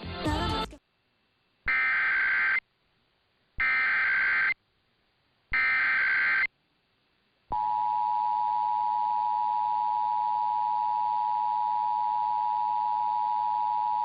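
Emergency Alert System SAME header: three bursts of warbling digital data tones, each just under a second long and about two seconds apart. About halfway through, the steady two-tone EAS attention signal begins. A brief snatch of other audio is heard at the very start.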